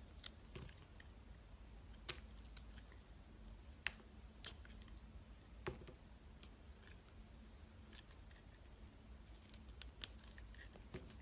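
A blade cutting through soap: sparse, sharp, crisp clicks, about a dozen spread unevenly, the loudest cluster a little before halfway and another near the end.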